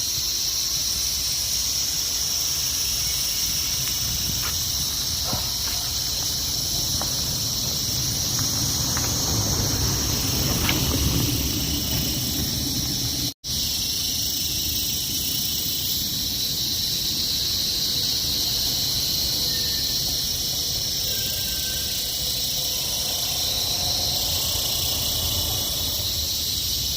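A steady, shrill insect chorus, high-pitched and unbroken, with a faint low rumble underneath; the sound cuts out for an instant about halfway through.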